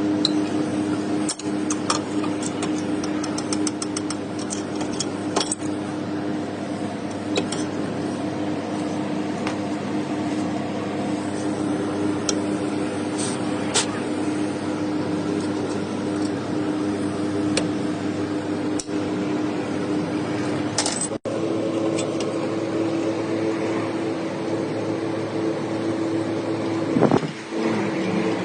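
A vehicle running with a steady mechanical hum and occasional sharp clicks.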